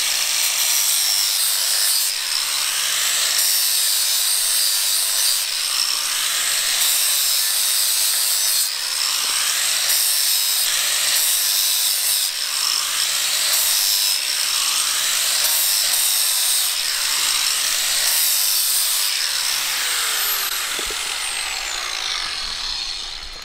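Electric angle grinder running against a rusty VW Beetle brake drum, a steady high whine over continuous scraping as the crust is ground off the drum's surface. Near the end it is switched off and winds down with a falling whine.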